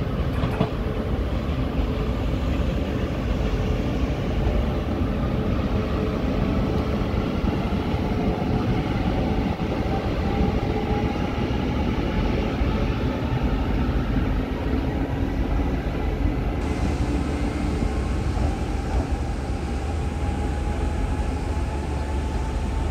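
TRA EMU700-series electric multiple unit (EMU713/714) pulling out and accelerating away: a faint electric motor whine rising slowly in pitch over a steady low rumble.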